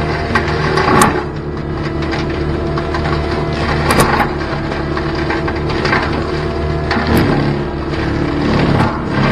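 CAT 289D3 compact track loader's diesel engine running under load while its Gyrotrac 500HF forestry mulcher head shreds thick brush, with wood cracking and splintering. Sharp snaps come about one, four and seven seconds in.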